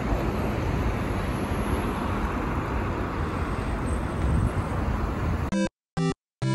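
Steady city street traffic noise. About five and a half seconds in it cuts off into two brief snatches of music with silence between them, and music starts again at the end.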